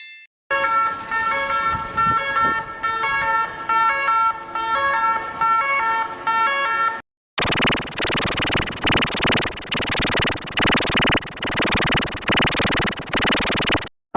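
Two ambulance siren sound variations in a row, with a short silence about seven seconds in. The first alternates between held tones. The second is harsher and pulses about twice a second.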